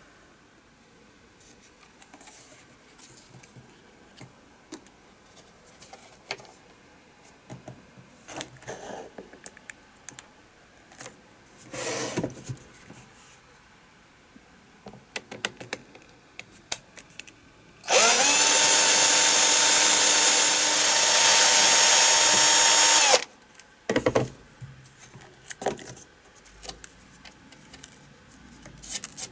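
A small electric drill runs steadily for about five seconds, spinning up at the start and cutting off abruptly, amid scattered clicks and taps of small parts and tools being handled.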